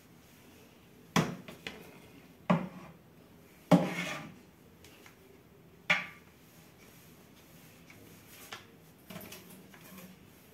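An electrostatic duster on a broomstick knocking against the top of a wooden cabinet as it is swept along: four sharp knocks in the first six seconds, then softer taps and rubbing.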